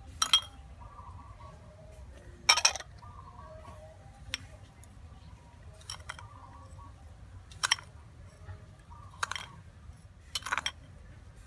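Metal spoon clinking against a small glass bowl while scooping seasoning powder and white sugar: about seven sharp clinks, one every second or two, a few coming in a quick cluster near the end.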